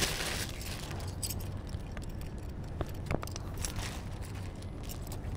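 A thin plastic bag rustling in the hands at the start, then a few faint clicks and taps from handling, over a steady low background hum.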